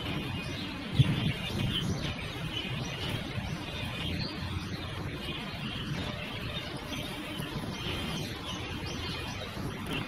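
Oriental magpie-robin singing, a run of short repeated chirps and whistles over a steady low rumble, with a sharp thump about a second in.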